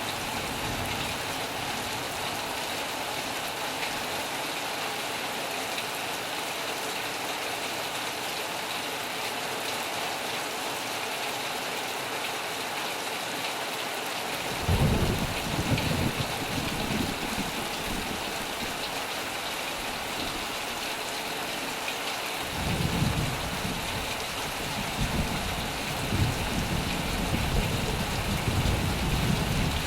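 Heavy rain falling in a steady hiss. A low rumble of thunder breaks in about halfway through and fades, then a second, longer rumble starts about three quarters of the way through.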